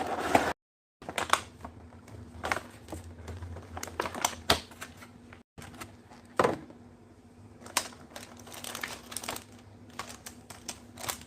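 An RC car's box and plastic packaging being opened and handled: irregular clicks, taps and crinkling, with two brief gaps of dead silence.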